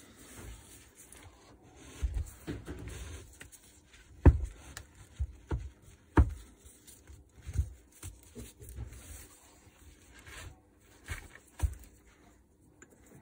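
Gloved hands handling the parts of the Makita UD2500 garden shredder's electric motor (the aluminium gearbox housing, the wound stator and its lead wires), with rubbing and several sharp knocks and clicks of metal parts against each other.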